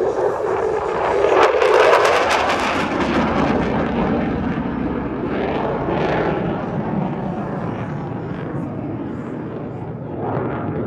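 Fighter jet passing low and climbing away, its engine noise swelling to loudest about two seconds in, then fading gradually as it recedes.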